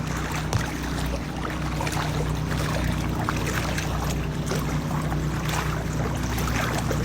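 Floodwater sloshing and swishing around legs as a person wades through thigh-deep water, with a steady low hum underneath.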